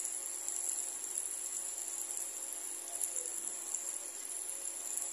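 Taro-stolon curry simmering softly in a pan, with small scattered pops, under a steady high-pitched whine.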